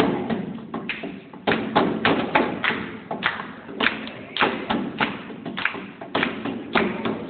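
Hand drumming: an irregular run of thumps and taps from hands striking a surface, a few strokes a second.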